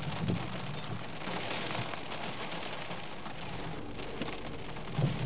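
Rain on a moving car, with a steady hiss of wet road noise beneath it.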